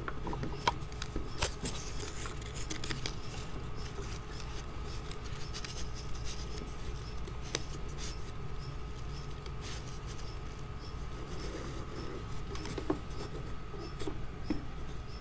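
Strips of watercolor paper rustling, rubbing and ticking as they are woven over and under the strips of another painting, in small scattered handling sounds.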